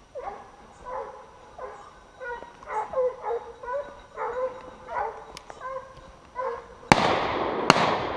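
Hunting hounds baying in a steady run of barks, about one every half to one second, the sign of dogs holding a wild boar at bay. About seven seconds in, a sudden loud rushing, crunching noise takes over, with two sharp clicks.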